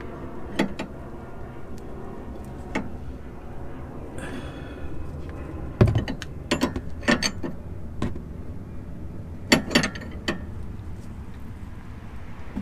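Irregular metallic clicks and knocks from a wrench working the jam nut snug on a new outer tie rod, with one louder knock about halfway through and a quick run of clinks just after it.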